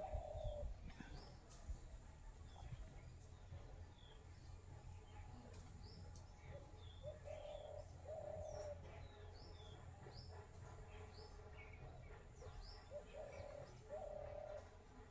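Birds calling faintly: short low warbling calls come in pairs, at the start, about seven seconds in and near the end, over many scattered high chirps. A steady low rumble lies beneath.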